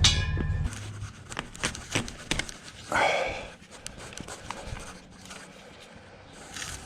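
A steady low mechanical hum cuts off under a second in. Scattered knocks and clicks of hands-on work follow, with a heavy breath or grunt about three seconds in.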